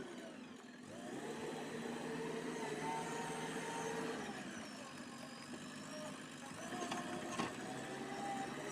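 JCB 3DX backhoe loader's diesel engine working, its pitch dropping and climbing back about half a second in, then swinging up and down as the revs change. Two sharp knocks come about seven seconds in.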